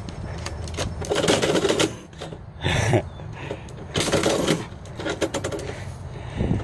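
Metal door letter-slot flap clacking and envelopes rustling, in several separate bursts, as mail is pushed in through the slot and shoved back out by a cat's paws from inside.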